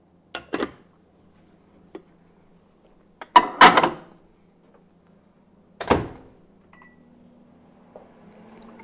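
A glass lid clinks twice onto a ceramic baking dish, then there is a loud clatter as the dish goes into an over-the-range microwave and the door shuts with a knock. A short keypad beep follows, and near the end the microwave starts running with a steady hum.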